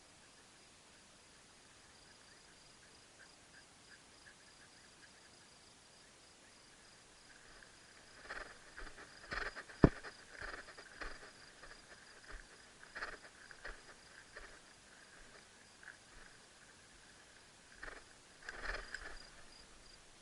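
Insects trilling steadily in a field, two thin high tones held throughout. From about eight seconds in come irregular brushing and rustling noises, with one sharp click a little later.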